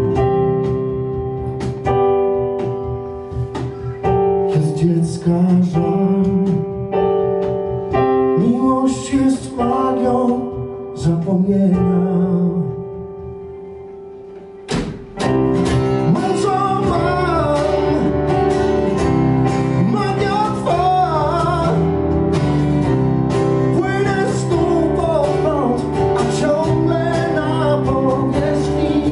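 Live acoustic band playing: keyboard and acoustic guitar chords with bass and percussion. About halfway through the music thins and fades, then after a sharp click the full band comes back in with a wavering lead melody over it.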